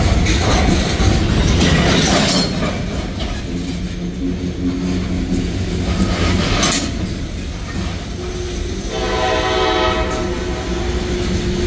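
Freight cars of a passing manifest train rolling by with a steady rumble and wheel clicks over the rail joints, with a couple of sharp clanks. About nine seconds in, a train horn sounds for over a second.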